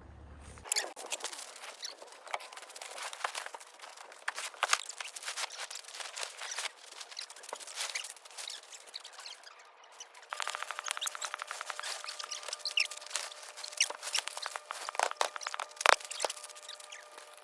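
Dense, irregular rustling and clicking, like things being handled close by. About ten seconds in the sound changes abruptly and a faint steady tone joins the clicking.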